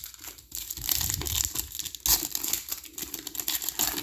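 A trading card pack's wrapper being torn open and crinkled by hand, starting about half a second in with dense crackling.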